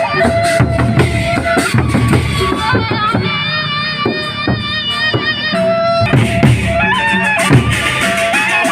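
A gendang beleq ensemble playing traditional Sasak music: big drums beating steadily under a reedy wind melody of held, wavering notes.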